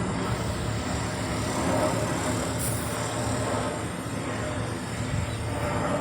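Steady engine rumble with a low hum, without clear breaks.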